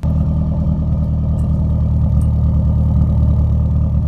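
Car engine idling steadily, loud and low-pitched, cutting in suddenly at the start.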